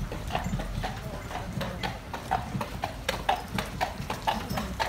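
Carriage horse walking, its shod hooves clip-clopping on the street pavement in an even beat of about three strikes a second, with a low rumble underneath.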